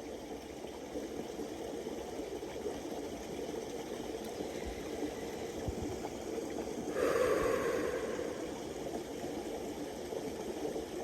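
Creek water flowing and burbling steadily, with a brief louder rush about seven seconds in that fades over a second or so.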